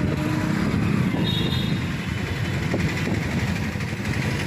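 A motorcycle engine running with a rapid, even thumping.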